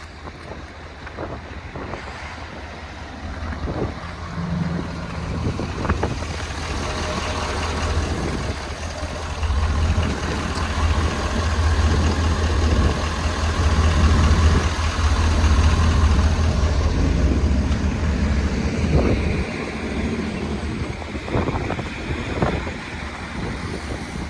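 Ford F-350's 6.7-litre Power Stroke V8 diesel running, growing louder and staying strong through the middle, then easing off. A few short knocks and some wind noise on the microphone.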